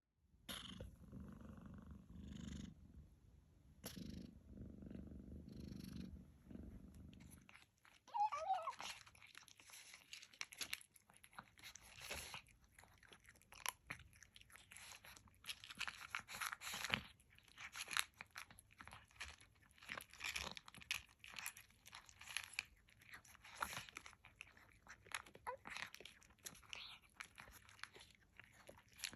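Kitten purring steadily, then a short meow about eight seconds in, followed by the kitten gobbling its food with quick clicky chewing and crunching.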